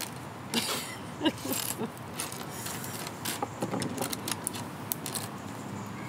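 Small plastic building bricks clicking and rattling: irregular light clicks as loose pieces are picked through and snapped together on a tabletop.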